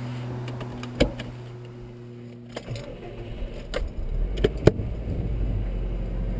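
Keys jangling and sharp clicks inside a car cabin, then a low car-engine rumble sets in about four seconds in and holds steady.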